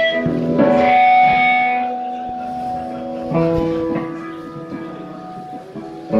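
Electric guitar chords struck and left to ring out, a new chord about every three seconds.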